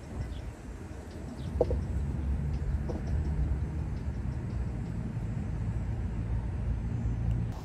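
Steady low rumble of outdoor background noise, with a short bird call about a second and a half in and a fainter one near three seconds.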